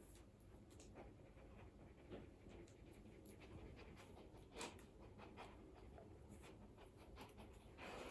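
Very quiet: a few faint small clicks and rustles, the sharpest about halfway through, with a large dog breathing softly.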